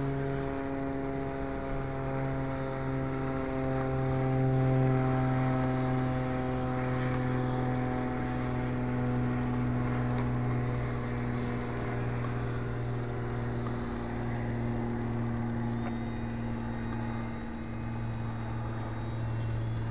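Steady hum of a ParkZone Champ RC plane's small electric motor and propeller in flight, its pitch sinking slightly.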